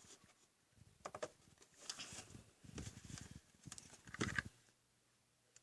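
Faint handling noises while gluing a craft piece with a hot glue gun: a few irregular soft knocks and rustles as the parts are moved and pressed together, the loudest a little over four seconds in.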